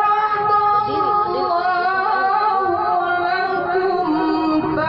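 A solo reciter's voice chanting Quran recitation in the melodic tilawah style, holding one long note with a slight waver and stepping down in pitch twice near the end. The reciter calls this voice wrecked from being unwell.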